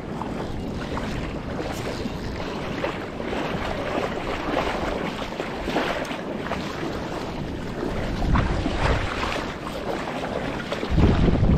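Wind buffeting the camera microphone over the wash of shallow water, with stronger gusts about eight seconds in and again near the end.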